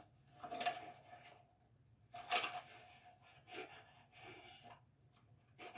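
Faint handling sounds of unwrapping gifts: a few brief rustles and light clicks as small items and their packaging are picked over.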